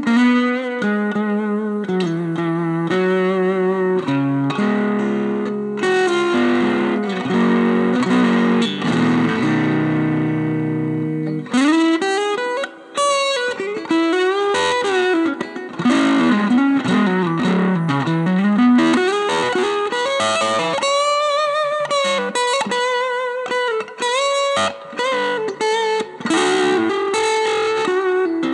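Electric guitar played through a Veri-Tone Arcturus vintage-style Class A preamp pedal: picked melodic notes, a chord held for several seconds, then lead phrases with notes bending up and down in pitch.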